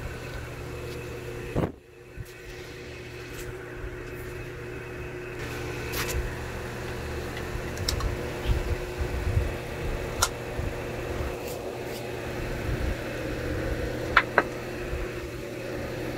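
Steady hum of a running workshop machine motor, overlaid by scattered knocks and rustles of the phone being handled against clothing, with two sharper clicks near the end.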